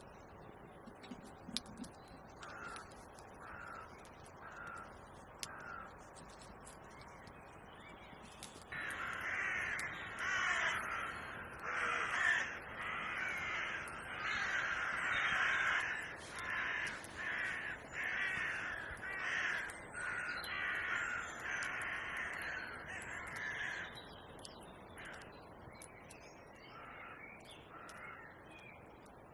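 Crows cawing. Four short caws come a few seconds in, then a long run of dense, loud cawing lasts about fifteen seconds and thins out to a few fainter caws near the end.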